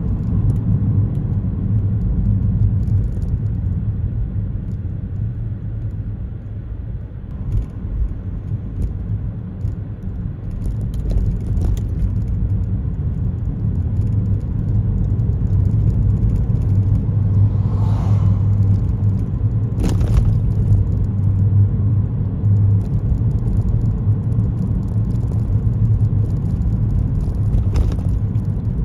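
A car driving on a city road: a steady low rumble of road and tyre noise that eases off a little several seconds in and then builds again, with a few brief clicks or knocks.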